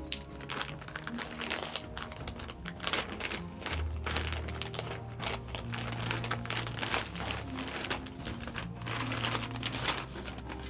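Packaging crinkling and rustling as it is handled, in irregular crackles over soft background music.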